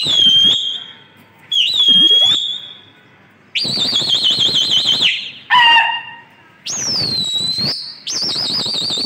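Shrill whistles blown by pigeon fliers, about six in a row. Each drops from a high start and then holds one pitch, and two are long, with a fast warbling trill. A shorter, lower call comes about halfway through. Whistling like this is how pigeon keepers keep their flock circling in the air.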